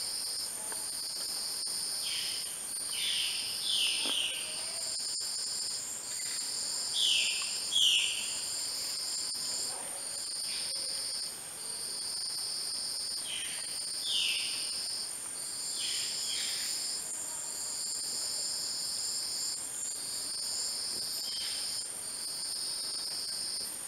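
Tropical forest insect chorus: a steady high-pitched buzz over a pulsing trill that repeats about every second and a half. Now and then a pair of short falling calls cuts in.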